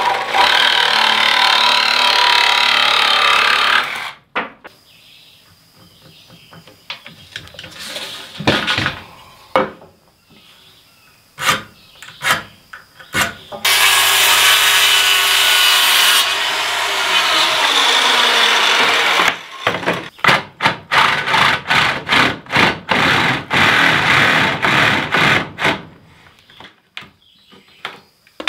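A reciprocating saw cutting off a protruding bolt end for about four seconds, then scattered knocks. About fourteen seconds in a corded circular saw cuts through a 2x4, followed by a quick run of sharp knocks and short cuts as a notch is worked into the board.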